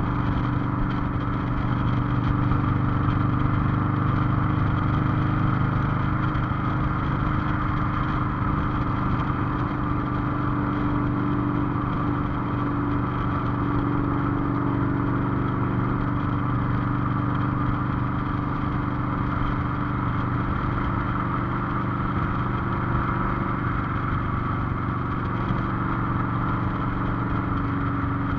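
Cruiser motorcycle engine running steadily under way, heard from the rider's seat over road and wind noise. The engine note shifts slightly a little past the middle.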